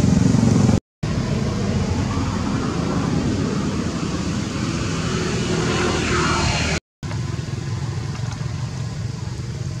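Steady low outdoor rumble of background noise, broken twice by brief cut-outs to silence, about a second in and near seven seconds.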